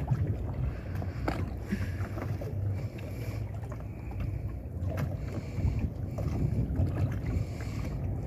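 Wind rumbling on the microphone with choppy water lapping against the hull of a small open rowing boat, and a few light knocks from gear in the boat.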